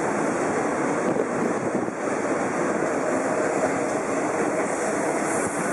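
Rio de Janeiro metro train running into an elevated station, a steady rolling rumble of wheels on rail with a faint whine in the middle and more hiss near the end.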